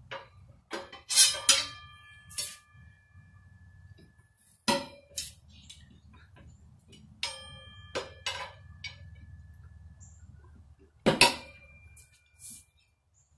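Steel tire spoons clinking and knocking against a motorcycle wheel rim as a new tire's bead is levered on: about a dozen sharp metallic clinks at irregular intervals, some ringing on briefly. The loudest come about a second in and near the end.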